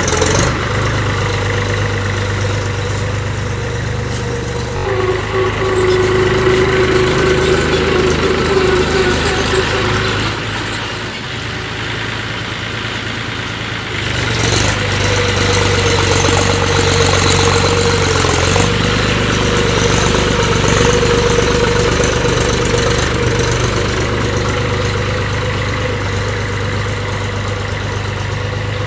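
Mahindra 275 DI tractor's three-cylinder diesel engine running under load as it pulls a cultivator through soil. It goes quieter for a few seconds a little before halfway, then picks up again.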